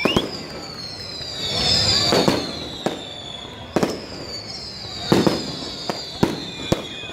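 Aerial fireworks going off in a string of sharp bangs at irregular intervals, with high whistles falling in pitch between them.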